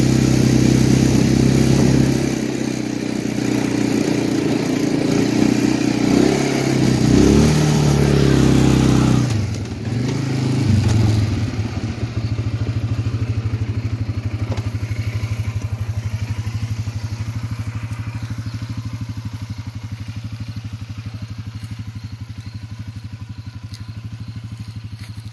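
Can-Am Outlander 400 ATV's single-cylinder four-stroke engine running under changing throttle for about nine seconds. It then drops off and settles into a steady idle that slowly grows fainter.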